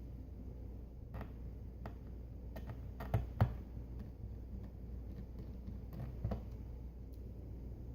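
Scattered light clicks and taps from working on a laptop's back cover with a small T5 Torx screwdriver, with two sharper knocks about three seconds in and another just past six seconds, over a steady low hum.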